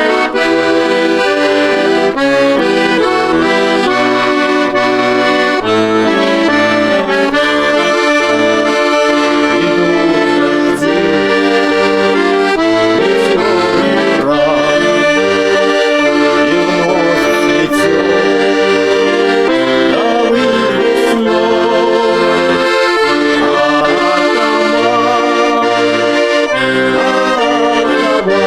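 Instrumental music without singing: sustained held chords that change every second or so, over a moving bass line.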